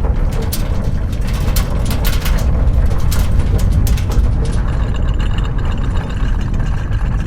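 Earthquake sound effect: a steady, loud deep rumble, with rattling and crackling for the first four seconds or so.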